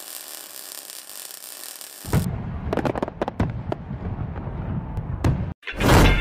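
Fireworks sound effect: a steady sparkler-like hiss, then from about two seconds in a run of sharp cracks and pops over a low rumble, and a loud burst near the end.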